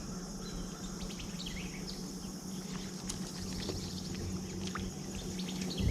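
Steady high-pitched insect chorus, likely crickets, with short bird chirps scattered through it and a low steady hum underneath.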